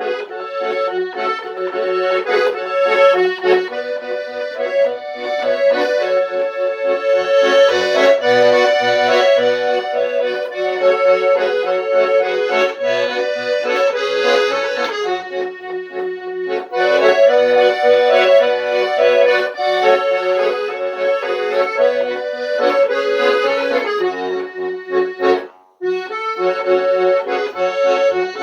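Kuban garmon (Russian button accordion) in A major, its reeds freshly restored and fine-tuned, playing a tune: a melody over sustained chords with short bass notes. The playing breaks off for a moment near the end, then resumes.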